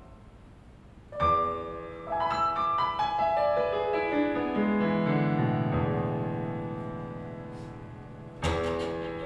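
Piano playing on its own in a classical-style arrangement of a pop song. A chord is struck about a second in, followed by a run of notes that falls steadily in pitch and fades, and a new chord near the end.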